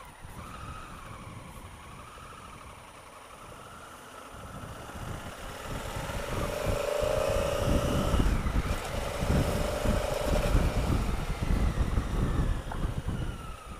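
Honda Africa Twin CRF1000L's parallel-twin engine running under way, heard through an action camera's microphone with gusty wind rumble. The rumble grows much louder from about five seconds in and eases off near the end.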